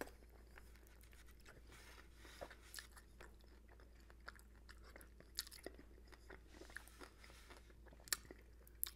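Faint, close mouth sounds of a person eating saucy chicken wings: wet smacks and small clicks of sucking and chewing meat off the bones, scattered irregularly, with two sharper clicks near the end.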